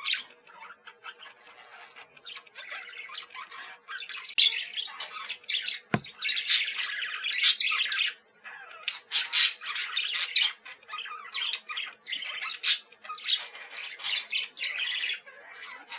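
Budgies chirping and chattering in quick, overlapping bursts of high chirps and squawks, with brief lulls. A single sharp click about six seconds in.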